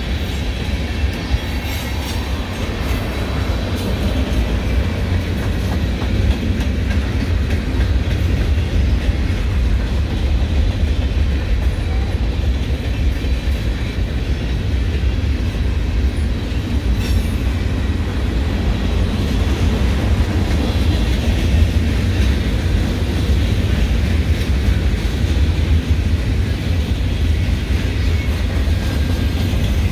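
Freight cars of a passing mixed-freight train rolling by at steady speed: a continuous rumble of wheels on rail, with some clickety-clack.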